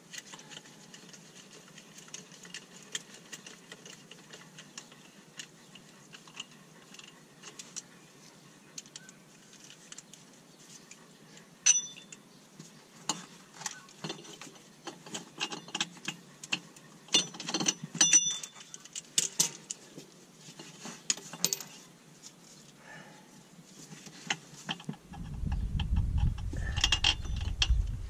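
Scattered light metallic clicks and clinks of a socket on an extension and a ratchet as the bolts on a transmission housing are run down, busiest in the middle stretch. A low rumble comes in about three seconds before the end.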